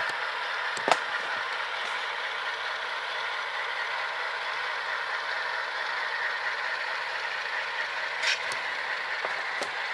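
Model Alco diesel locomotives with Soundtraxx Tsunami sound decoders running, their small onboard speakers playing a steady Alco 244 and 251 diesel engine sound that is thin, with no bass. Two short sharp clicks, about a second in and near the end.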